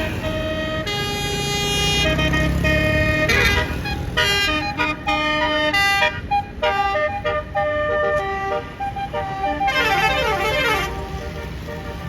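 Tour bus 'basuri' multi-tone musical horn playing a tune in held notes that step up and down in pitch, over the low rumble of the bus. Near the end a quick run of notes slides downward.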